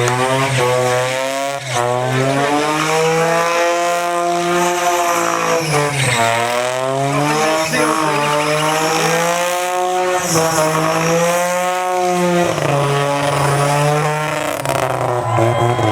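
Single-rotor Mazda rotary engine of a racing lawn mower being driven hard, its pitch rising and falling over and over and dropping sharply about 2 and 6 seconds in as the throttle comes off.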